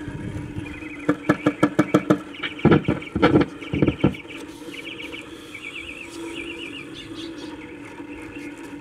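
Magnavox console's phono cartridge stylus being tapped on the record changer's tone arm, the taps heard through the console's speakers as a quick run of clicks and then a few heavier thumps over a steady low hum: a check that the phonograph input is working. Birds chirp faintly.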